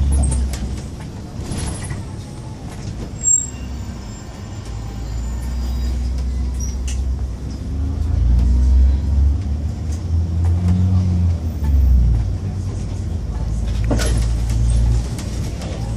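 Irisbus Citelis 18 CNG articulated bus's natural-gas engine heard from inside the bus while under way, its low note rising and stepping as the bus gathers speed and changes gear. A single sharp click about three seconds in.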